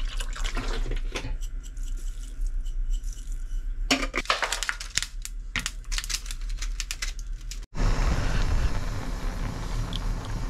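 Water pouring into a glass bowl of cold cucumber soup, then ice cubes dropped in, clattering and clinking against the glass in a quick run of sharp clicks from about four seconds in. After a sudden cut, a steady hiss.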